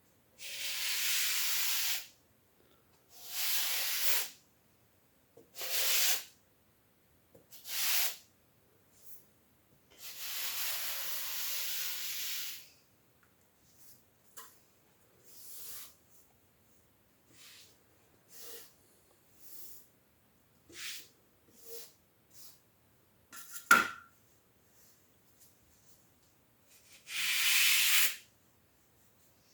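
Grout float swept across a tile floor, working wet grout into the joints in a series of rubbing, scraping strokes, some long and some short. A single sharp knock comes a little over three quarters of the way through.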